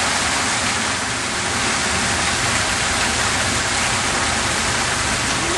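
Fountain water gushing and splashing steadily into its pool, a loud, even rushing.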